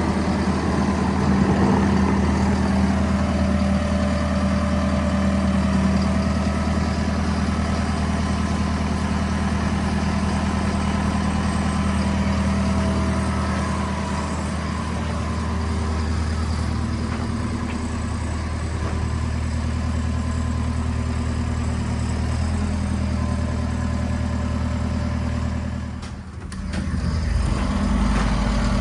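Diesel engine of a Volvo MC115C skid steer running steadily, with a short drop in level near the end.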